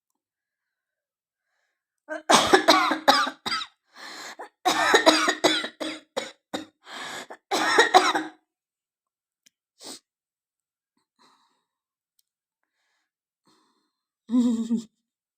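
A woman coughing: a run of hard, closely spaced coughs for about six seconds, a single small cough near 10 s, and one more short cough near the end.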